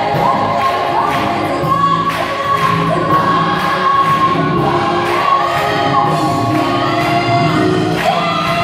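Large mixed choir singing, with steady rhythmic hand clapping from the singers on the beat.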